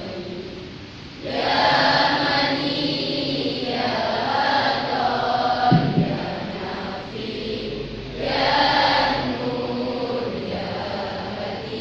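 A choir of voices singing together in held phrases, with a brief low thump about six seconds in.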